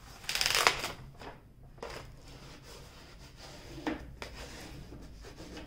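Paper release sheet on a diamond painting canvas rustling and crinkling as it is peeled back by hand, loudest about half a second in, then a few softer rustles as it is pressed flat.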